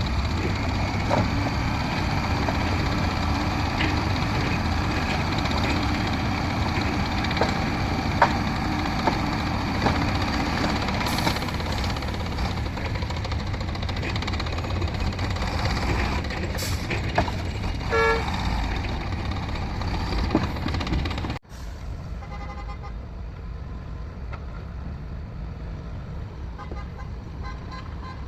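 Diesel engines of heavy earthmoving machinery and trucks running steadily, with occasional knocks and a short horn-like toot about eighteen seconds in. Near the end the sound cuts off abruptly and resumes as a quieter engine rumble.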